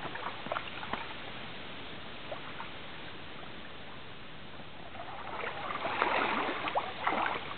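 Pool water sloshing gently, then splashing that grows louder about five seconds in as a swimmer pushes off and kicks away through the water.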